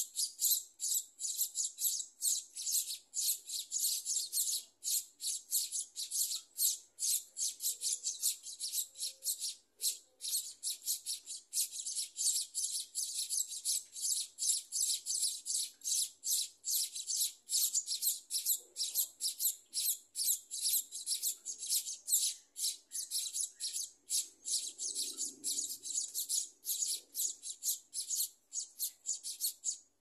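Scaly-breasted munia nestlings in the nest giving rapid, high-pitched chirps, about four a second, in a steady unbroken series.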